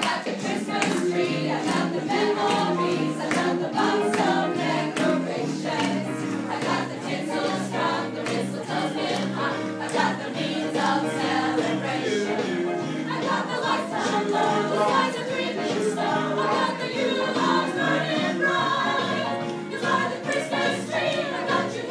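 Music with a choir singing over accompaniment and a steady beat.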